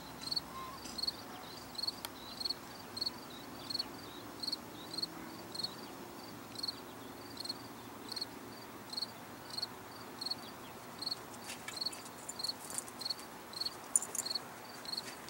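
A cricket chirping steadily at an even pace, about three short high chirps a second, over faint outdoor background noise. A few sharper high clicks come in near the end.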